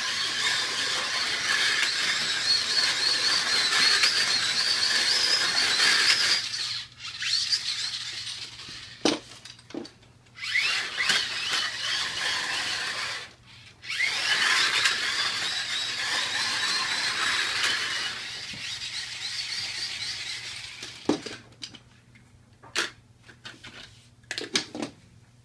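Slot cars' small electric motors whining as they race around a plastic track, the pitch rising and falling with the throttle. The whine drops out twice for a moment, and near the end it dies away into a few sharp clicks and clatters as the cars are handled on the track.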